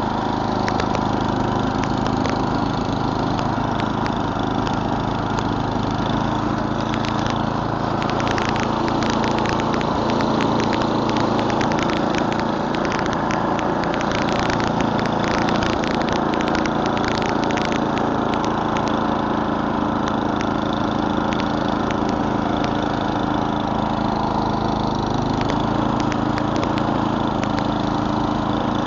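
Murray Select snowblower's 11 hp Tecumseh single-cylinder engine running steadily while it clears snow. From about seven to eighteen seconds in, a dense run of rapid clicks and rattles is heard over the engine.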